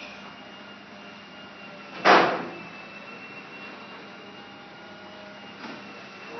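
Garage door opener motor running with a steady hum, with one loud clunk about two seconds in and a faint click near the end.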